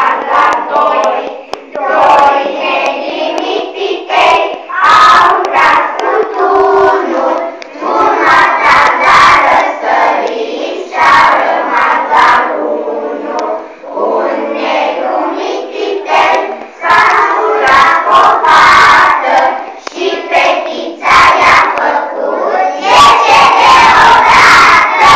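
A class of young children singing loudly together in unison, in short phrases with brief breaks between them.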